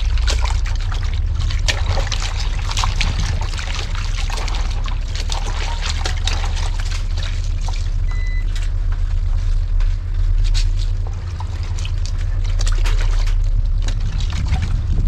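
Water trickling and splashing with many small sharp clicks, over a steady low rumble.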